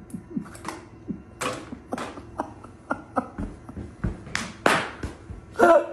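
Plastic water bottle crinkling and knocking in irregular taps as a cat carries it in its mouth and bumps it against its metal food bowls and stand, with a brief pitched call near the end.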